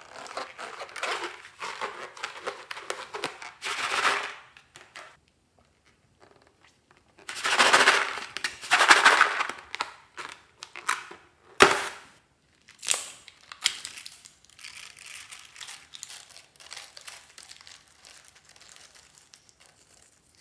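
Hands handling slime-making materials (balloons, slime): bursts of crinkling and rustling, with one sharp snap about twelve seconds in, then fainter rustling.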